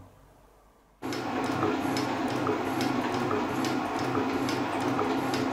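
Metal shaper starting up about a second in and running with a regular back-and-forth ram stroke, its single-point tool cutting a flat on a phosphor bronze bush.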